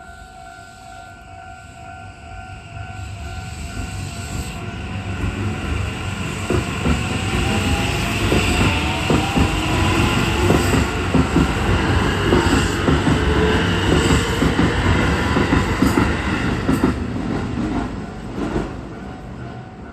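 Level-crossing warning bell ringing steadily while a Keisei Chiba Line electric train passes. The train grows louder from about three seconds in, with wheels clattering over rail joints and a rising whine, then fades near the end.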